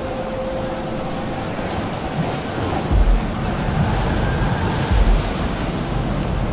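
Ocean surf: large waves breaking and rushing into foam, with heavy low booms of breaking water about three seconds in and again near five seconds.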